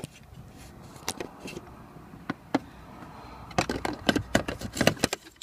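Handling noise as a light is worked up behind a car dashboard: scattered clicks, taps and light scraping, with a quick run of sharp clicks about three and a half to five seconds in.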